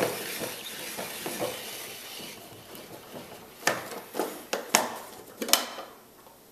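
Plastic hand-crank vegetable spiralizer being turned, its blades cutting zucchini into thin strips with a steady grating sound for about two seconds. Then come about five sharp plastic clicks and knocks as its lid and crank are worked loose and lifted off.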